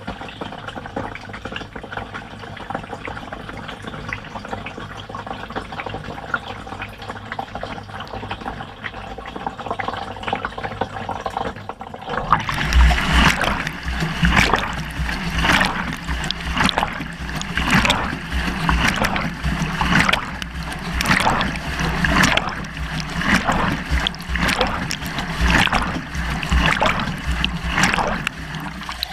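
Water trickling and splashing inside a Beko washing machine drum, heard from inside the drum. About twelve seconds in the drum starts turning and the water sloshes louder in regular surges, about once a second.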